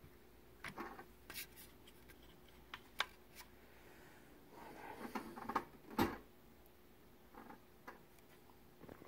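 Quiet workbench handling noise: scattered small clicks, taps and rustles, with one sharper knock about six seconds in, over a faint steady hum.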